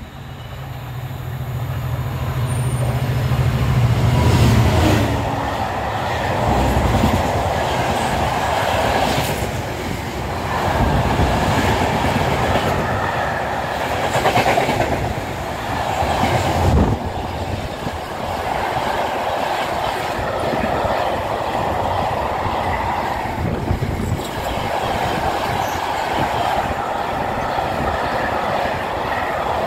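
Long freight train of car-carrier wagons, loaded with new cars and vans, passing close at speed. The sound builds over the first few seconds as the locomotive and front wagons arrive, then holds as a steady rolling roar. Wheels click and clatter over the rail joints as each wagon goes by.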